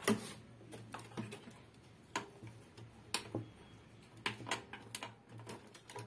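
Sharp clicks and taps at uneven intervals, one or two a second, from hands handling the opened CRT TV's chassis circuit board, over a faint low hum.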